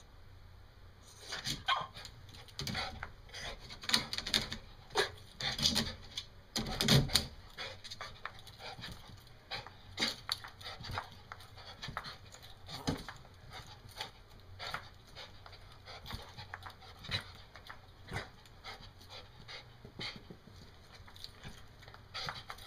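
Excited terrier jumping up and down repeatedly, panting, with irregular thumps and clicks of her paws landing. The noises are busiest in the first third and loudest about seven seconds in, then come more sparsely.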